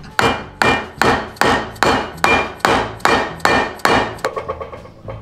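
A hammer striking metal in a rapid, even series of about eleven blows, roughly two and a half a second, each with a short metallic ring, driving a grooved pin (Kerbbolzen) into a Simson engine part; the blows fade to lighter taps about four seconds in.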